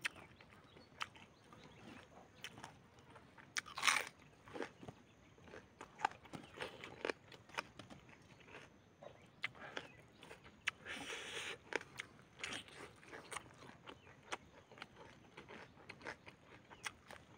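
Close-up eating sounds: chewing and crunching a mouthful of chicken and rice eaten by hand, with irregular wet clicks. One sharper crunch about four seconds in.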